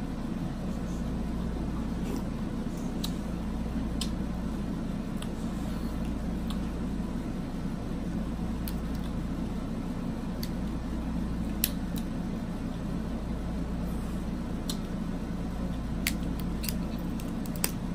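Crab leg shells cracking and snapping as they are pulled apart by hand, heard as scattered sharp clicks, the loudest about two-thirds of the way through and near the end. Under them runs a steady air-conditioner hum.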